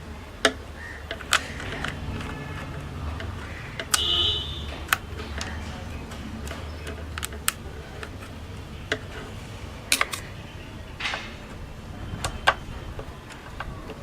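Irregular sharp clicks and taps of hand work on a radio cabinet, with screws and parts being handled as the speaker is fitted inside, over a steady low background rumble. A short high-pitched tone sounds about four seconds in.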